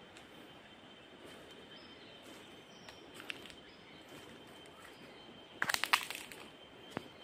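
Quiet outdoor riverside ambience, a steady low hiss with a faint high steady tone. About six seconds in comes a short burst of sharp crackles and clicks, the loudest sound, with a few smaller clicks before and after.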